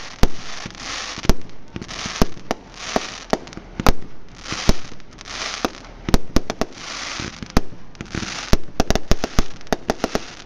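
Aerial fireworks shells bursting in an irregular series of sharp bangs, with a rapid cluster of bangs near the end. Stretches of hiss swell up and fade between the bangs.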